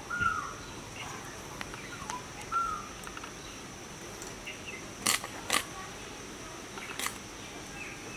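Mrigal carp being scraped against a boti blade: a few short, sharp scraping strokes, the loudest two about five seconds in and another near seven seconds. A couple of short bird chirps come in the first three seconds over a steady high insect drone.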